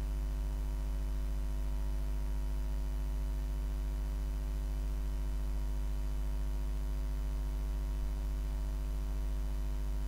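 Steady low electrical mains hum, picked up on the recording with no other sound.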